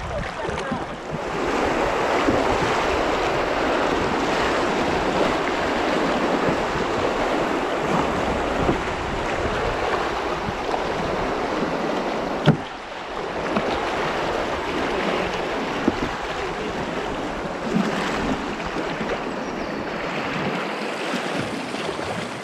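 Fast river water rushing and splashing around an open canoe, with paddle strokes in the water and wind buffeting the microphone. The sound breaks off briefly after a sharp knock about twelve seconds in.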